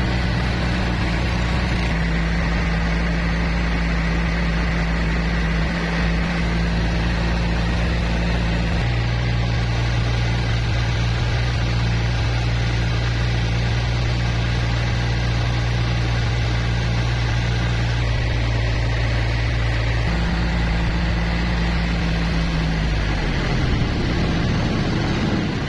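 Boat engine running steadily as the boat cruises along, with water and wind wash over it; the engine's hum shifts in pitch a few times.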